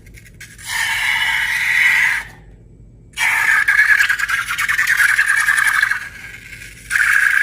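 Balloon squealing as air is let out through its stretched neck, in three long, buzzing squeals with short pauses between them.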